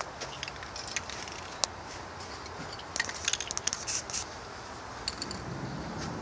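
Aerosol spray-paint can in use: scattered sharp clicks and a couple of short hisses about four seconds in, over a steady background hiss.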